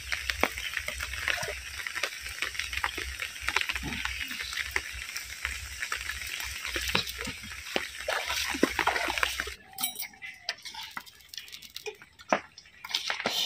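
Heavy rain falling, a dense hiss of countless drop impacts over a low rumble. About nine and a half seconds in it cuts off suddenly to a much quieter background with a few scattered clicks and drips.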